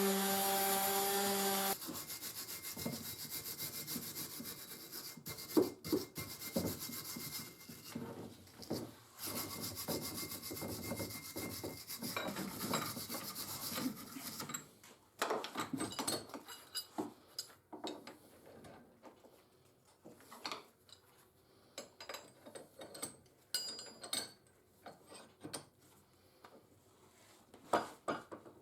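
A steady machine hum cuts off about two seconds in. Then come irregular rubbing and scraping strokes on the parts of a dismantled bench vice, cleaned by hand. These give way to scattered clicks and light knocks as parts are handled.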